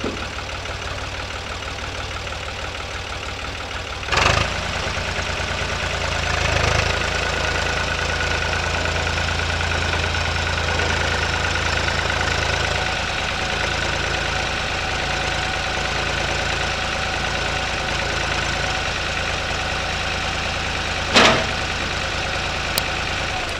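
Farm tractor engine running steadily. There is a sharp clunk about four seconds in, after which the engine runs a little harder and deeper for several seconds, and another sharp clunk near the end.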